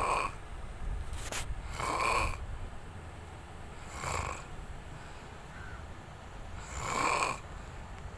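Snoring: four snores of about half a second each, two to three seconds apart, with a short sharp click a little after the first.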